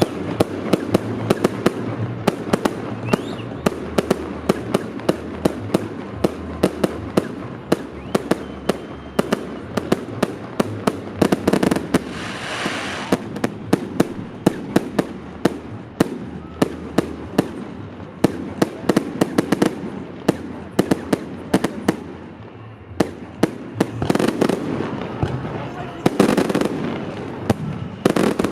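Fireworks display: shells bursting in quick succession, several sharp bangs a second, with stretches of crackling hiss between them, one about halfway through and more near the end.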